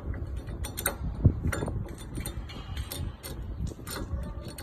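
Irregular light metal clicks and scrapes of stainless steel parts being fitted by hand into a dumpling machine's hopper.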